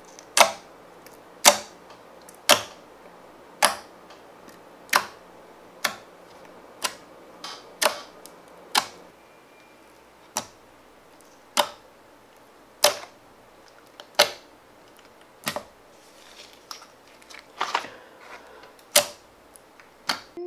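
Fingers poking clear slime mixed with gold leaf flakes, each poke giving a sharp click or pop, roughly once a second. A few clicks come in quick pairs near the end.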